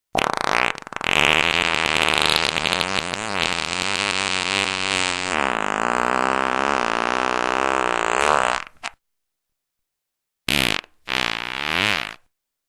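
A long, buzzy fart sound of about eight and a half seconds, its pitch wavering up and down, cut off sharply; after a short silence come two short farts in quick succession near the end.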